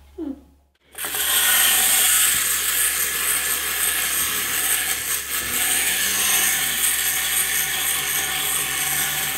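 Small clockwork wind-up toy whirring as its motor runs and it moves across a hard tabletop. It starts about a second in.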